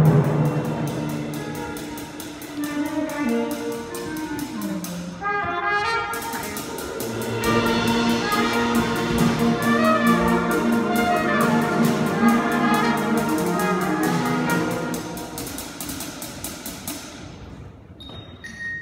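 School concert band playing, with brass holding chords over a fast, even pulse. The music thins out and fades near the end.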